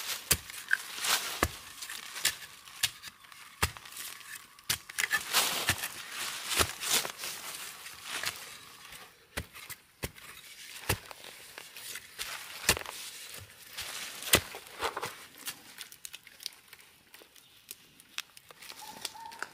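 A digging tool chopping into soil around a bamboo shoot: irregular sharp strikes, with loose earth and dry leaves crumbling and scraping between them.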